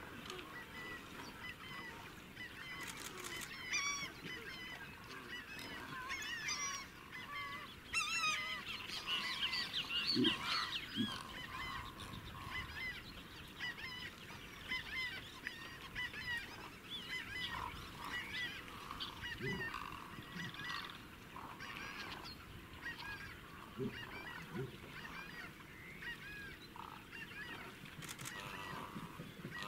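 A dense chorus of many waterbirds calling at once: short overlapping calls that never stop, busiest about a third of the way through. A few brief low sounds break through underneath now and then.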